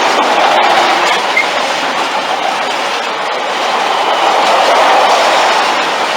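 Freight train of tank wagons rolling past close by: a steady rumble of wheels on rail with a clickety-clack over the rail joints.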